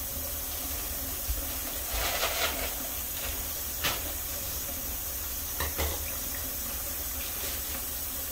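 Hot water running steadily from a kitchen tap into a mixing bowl in the sink, an even hiss, with a few scattered knocks.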